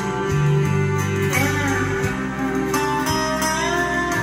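Recorded guitar music played through a pair of Sound Pro SC-300 two-way bookshelf speakers with rear bass-reflex ports, heard in the room.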